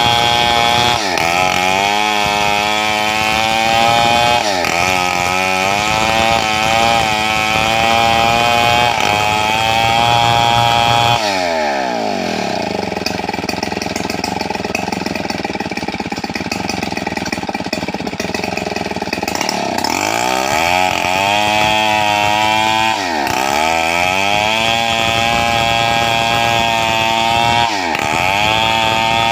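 Stihl 070 two-stroke chainsaw running hard while cutting a wide gmelina board. Its pitch dips briefly every few seconds, falls to a lower, steadier speed for about eight seconds midway, then climbs back.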